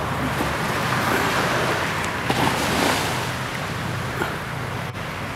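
Steady wash of small waves lapping on a beach, with some wind noise on the microphone.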